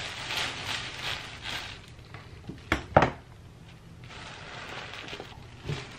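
Clear plastic oven bag crinkling and rustling as it is opened out by hand, with two sharp knocks close together about three seconds in, then lighter rustling that picks up again near the end.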